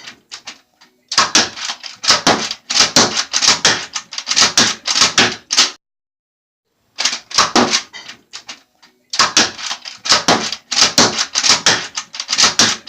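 Nerf nail-gun toy blaster being fired over and over in quick runs of sharp plastic clacks, several a second, with a pause of about a second in the middle.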